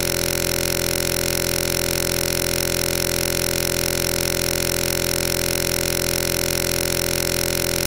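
Loud, unchanging electronic buzz with a rapid even flutter, filling the whole range from low to high pitch.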